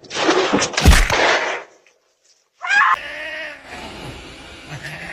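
A loud, harsh noisy burst lasting over a second, then a short pause, then a cat's brief meow about three seconds in. A quieter stretch with faint background noise follows.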